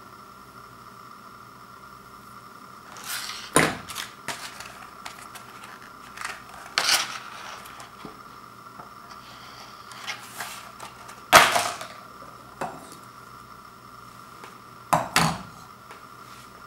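Crinkling and clicking of a stiff clear-plastic and cardboard wiper-blade package being handled, with a few sharp knocks as it and the steel wiper blade are set down on a wooden floor. The sounds come in four short bursts after a few quiet seconds, the loudest about two-thirds of the way through.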